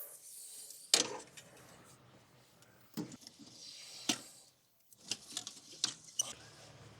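Irregular metal clinks and knocks of a small filter wrench and hand tools working the main diesel fuel filter loose. The sharpest knock comes about a second in, and a quick cluster of clicks comes near the end.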